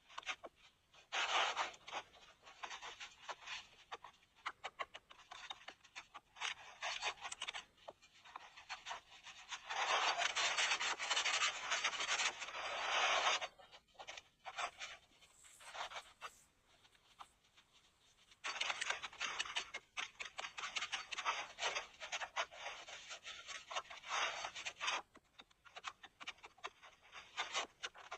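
Irregular rubbing and scraping noises in bursts, with one longer unbroken stretch of about three seconds near the middle.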